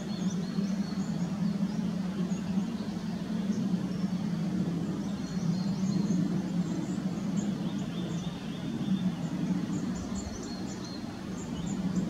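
A steady low drone that swells gently and never stops, with faint, brief high chirps and calls of small birds scattered through it.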